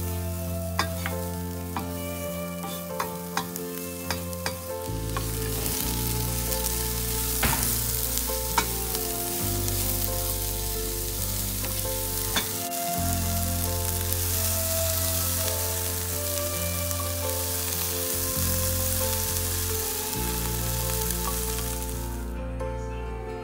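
Diced vegetables sizzling as they are stir-fried in a nonstick frying pan, with a wooden spatula clicking and scraping against the pan. The sizzle thickens about five seconds in and cuts off suddenly near the end. Soft background music with held chords plays underneath.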